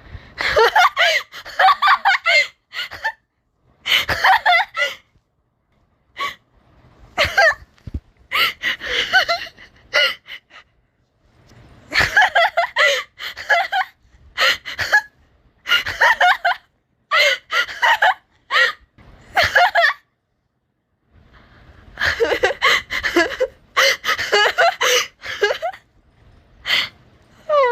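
A person laughing hard in repeated fits, with gasping breaths, the bursts coming in clusters broken by short silences.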